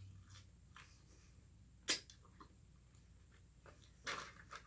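Faint eating noises: a few small clicks and one sharp click about two seconds in, then a short breathy rush near the end.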